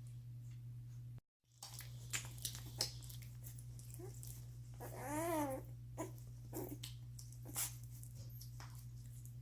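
Newborn Doberman puppies nursing and squirming: scattered small clicks and rustles, a few short squeaks, and one louder whimpering cry about five seconds in that rises and then falls in pitch. A steady low hum runs underneath, and the sound cuts out for a moment near the start.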